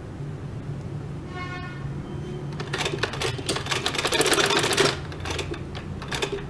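Sewing machine stitching: a quick run of rapid needle clicks lasting about two seconds, starting about two and a half seconds in, then a few single clicks.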